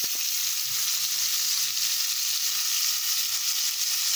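Flour-dredged wolf fish pieces frying in hot oil in a pot: a steady, even sizzle.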